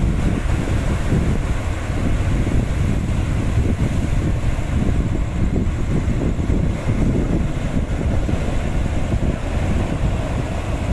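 Sea waves breaking and washing up onto a rocky shore, under a steady low rumble of wind buffeting the microphone.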